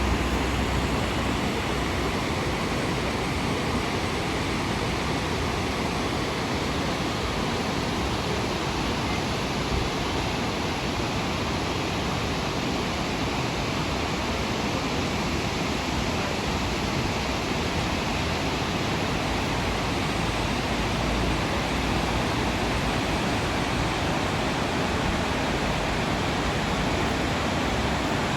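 Steady, unbroken rush of falling water, such as a weir or waterfall, with no distinct events.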